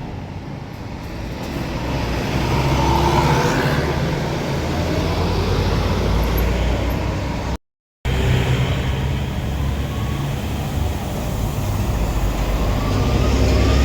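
Heavy diesel vehicles, buses, passing on the road, their deep engine rumble swelling as each one draws near. The audio drops out completely for about half a second midway.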